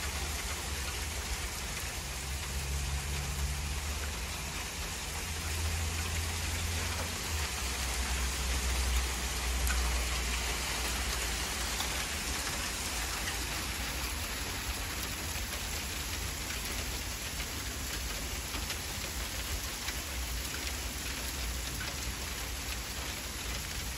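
Small hail mixed with rain falling steadily, pattering on a concrete patio as a soft even hiss of many tiny ticks. A low rumble runs underneath for about the first half.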